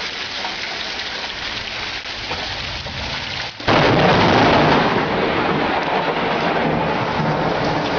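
Rain falling steadily, then about three and a half seconds in a very close lightning strike: a sudden loud thunderclap that stays loud to the end over the rain.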